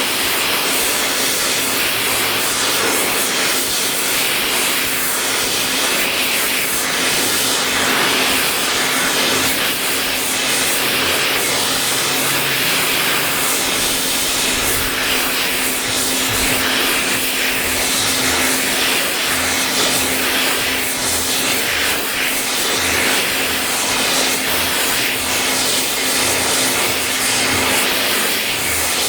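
A gas heating flame, such as a torch or forge burner, running with a steady, even hiss while the stainless steel is heated for forging.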